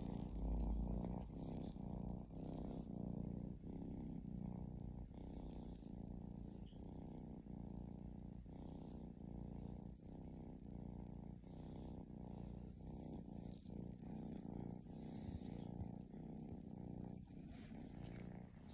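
Domestic cat purring steadily, a low continuous purr that pulses in a regular rhythm with its breathing.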